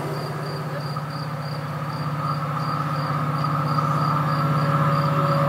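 Crickets chirping in a regular pulse, about three chirps a second, over a steady low hum and a higher whine that grow louder as a train approaches.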